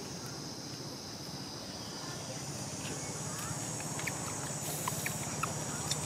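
Steady outdoor background: an even high-pitched drone and a low hum, with a few faint ticks coming more often in the second half.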